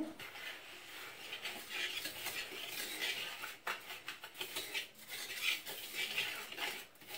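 A metal fork stirring dry flour, cocoa powder and sugar in a bowl for cake batter, scraping and clinking against the bowl in repeated irregular strokes.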